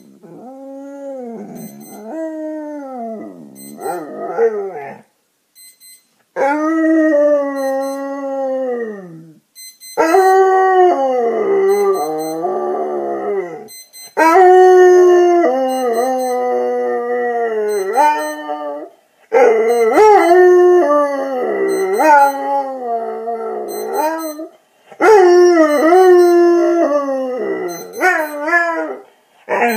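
A dog howling and grumbling in long wavering calls that glide up and down in pitch, soft at first and then in loud bouts of a few seconds each with short breaks: its protest at being woken up. A faint high beeping repeats in the background.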